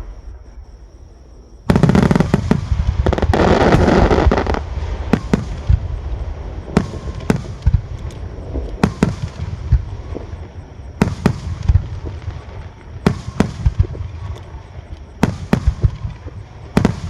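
Fireworks display: after a brief lull, a sudden loud volley of shell bursts with dense crackling, then sharp single bursts going off every second or so.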